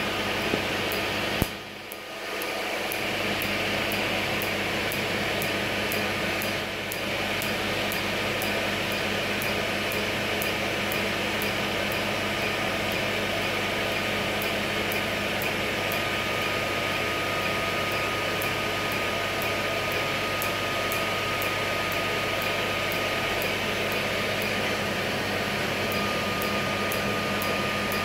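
Steady rush and hum of a skin-cooling air blower over a regular train of sharp clicks from a Q-switched tattoo-removal laser firing pulse after pulse. The blower's rush dips briefly about two seconds in.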